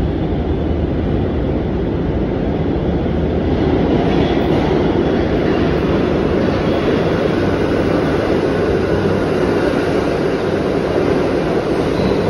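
New York City subway train approaching and pulling into the station, heard from the platform: a loud, steady rumble of wheels on the rails.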